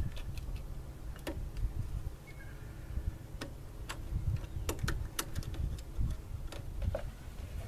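Irregular light clicks and taps of hands working at the engine's coolant hoses and fittings, over a low rumble.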